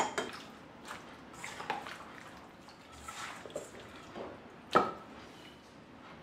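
Soft wet squishing and dripping as hands rub an oily spice marinade into chicken pieces in a stainless steel bowl, with a spoon clinking against the bowl at the start and one sharper knock about five seconds in.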